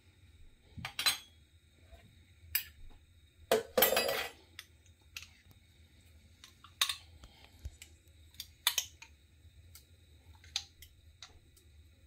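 Metal teaspoon clinking and scraping against a glass jar and a glass mixing bowl as jerk seasoning paste is spooned out: irregular light clinks, with a longer scrape about four seconds in.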